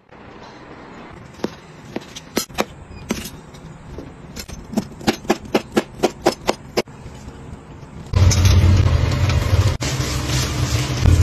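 A kitchen knife chopping carrots on a stainless-steel cutting board: sharp chops, a few spaced out, then quickening to about three a second. From about eight seconds in, beef cooking in an enamel pot on an induction hob takes over as a loud, steady sizzle with a low rumble.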